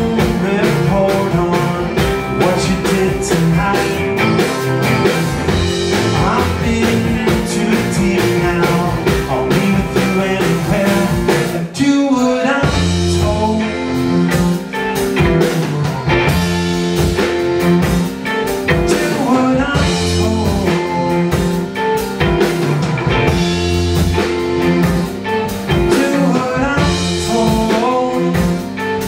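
Live band playing an instrumental passage of an indie rock song: electric guitar, bass guitar, bowed cello and accordion together at full level. About twelve seconds in the music briefly drops, then comes back with a heavier bass line.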